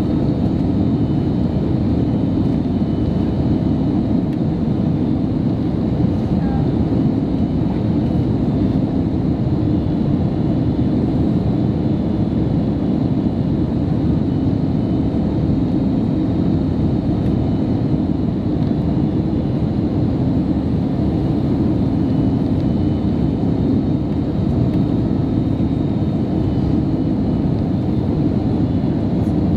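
Steady cabin noise inside an Airbus A321neo airliner in flight: a constant roar of airflow and engine noise with a low hum running under it.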